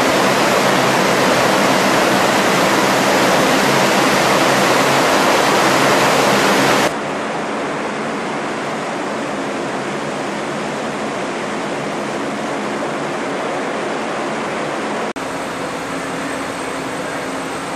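Loud, steady rushing noise of an LCAC hovercraft's gas turbines, lift fans and propellers running in a ship's well deck. About seven seconds in it drops abruptly to a quieter steady rush.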